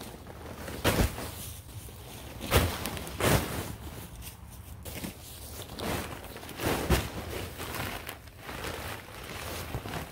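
Full paper yard-waste bags of dry leaves being set down and shifted, giving several separate thumps with a papery crinkle.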